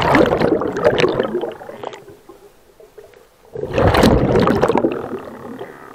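Scuba exhaust bubbles rushing and gurgling past the camera underwater: two bursts of bubbling about three and a half seconds apart, with a quiet gap between, at the pace of a diver's breaths out through a regulator.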